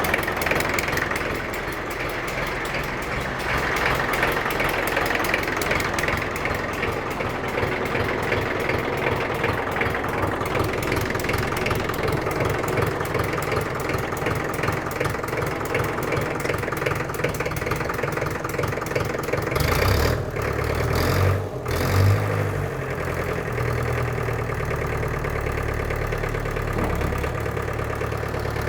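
Diesel engine of a 1963 International TD5 crawler dozer running steadily. About two-thirds of the way through comes a brief uneven patch, after which the engine carries on with a deeper, steadier rumble.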